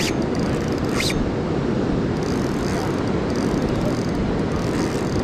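Steady rush of river current and wind on the microphone, with a few short, sharp high zips near the start and about a second in.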